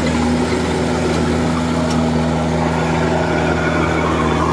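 Kubota DC-105X crawler rice combine harvester running steadily while cutting and threshing rice, a constant machine drone with low, even engine tones.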